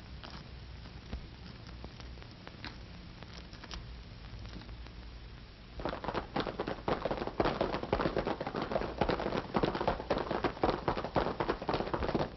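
Faint crackle and hum, then about six seconds in the rapid, irregular clatter of galloping horses' hoofbeats sets in and keeps going.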